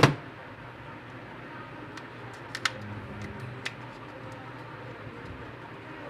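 Small plastic clicks and taps from a mobile phone's casing being handled and pried apart: one sharp click at the start, then a few faint clicks over a steady low room hum.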